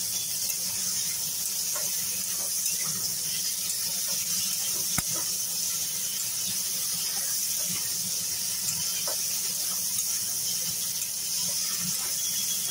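Chunks of papaya, potato and green banana sizzling in hot mustard oil in a metal kadai, a steady hiss, while a metal spatula stirring them scrapes and taps the pan now and then, most sharply about five seconds in.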